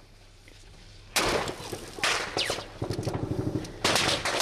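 Gunfire heard from inside a car: after a quiet moment, a sharp crack about a second in and another a second later, then a rapid run of shots and a further loud crack near the end.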